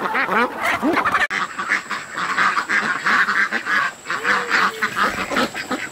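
A flock of white domestic ducks quacking, many short calls overlapping at once, with a brief break about a second in.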